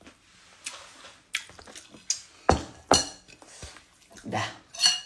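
Ceramic plate, bowl and spoon knocking together in a series of separate sharp clinks, the loudest two about two and a half and three seconds in.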